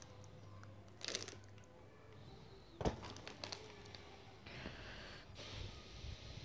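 Plastic-wrapped T-handle spanners being handled in a cardboard box: brief crinkles and rustles of the wrapping, with one sharp knock about three seconds in, over a steady low hum.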